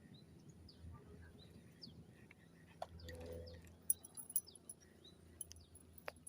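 Birds chirping faintly: short, quick falling chirps repeated through, over a low steady hum, with a few sharp clicks about four seconds in.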